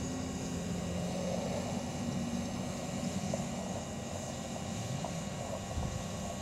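Propeller hum of a hovering DJI Mavic Pro quadcopter, a steady drone whose pitch wavers slightly.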